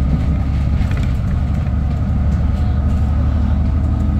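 Engine of an ADL Enviro 400 double-decker bus running steadily as the bus drives along, heard from inside the passenger saloon. A faint steady high whine sits over the engine's low rumble.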